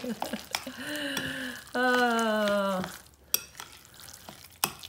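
A utensil stirring and scraping a ground chicken mixture in a glass bowl, with a few clicks against the glass. Near the middle a woman hums a falling 'mmm' for about a second, louder than the stirring.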